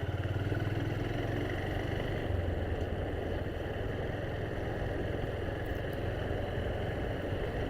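Motorcycle engine running steadily while riding, with a fast, even throb in the first second.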